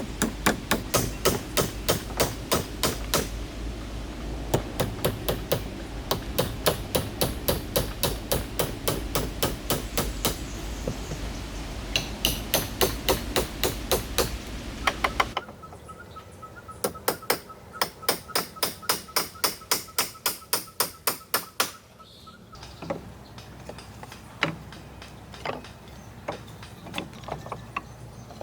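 Hammering: quick runs of sharp blows, about four a second, broken by short pauses. Partway through, the background changes and another run follows, then a few single knocks near the end.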